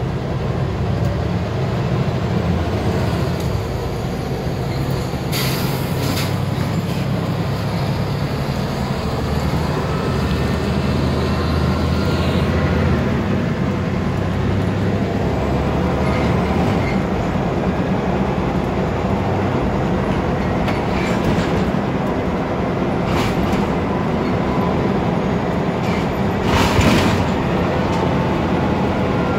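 Scania OmniDekka double-decker bus being thrashed, its diesel engine working hard under load as heard from the upper deck, the engine note shifting a couple of times. Body rattles run through it, with a few sharp knocks, the loudest near the end.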